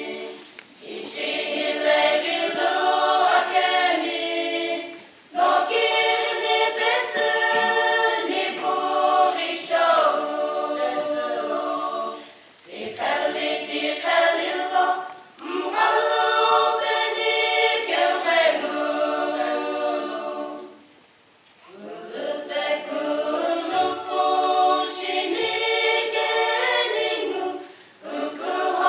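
Women's choir singing a cappella in several voices, in sung phrases of a few seconds each, broken by short pauses for breath.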